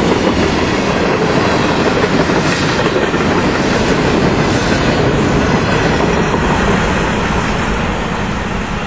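Covered hopper cars of a freight grain train rolling past at speed: a steady rumble and clatter of steel wheels on the rails, easing off slightly near the end as the last cars go by.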